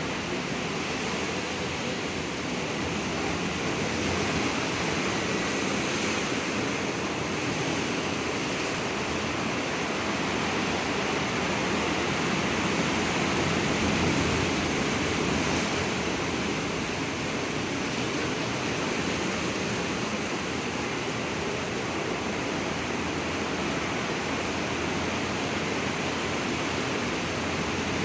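Ocean waves breaking on the shore, a steady wash of surf that swells and eases slowly, loudest about a third of the way in.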